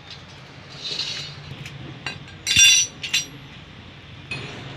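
Metal bicycle parts and tools clinking during a repair: a few light clicks, then a bright ringing metal strike about halfway through, and a couple more clicks.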